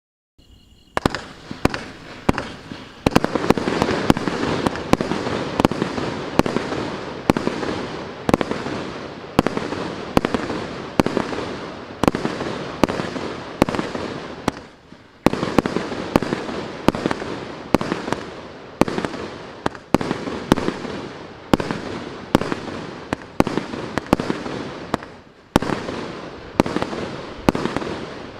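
Faseor Furious GWM6121 firework cake firing in rapid succession, about two sharp bangs a second, each trailing off over a dense continuous haze. There are brief lulls about halfway through and again near the end.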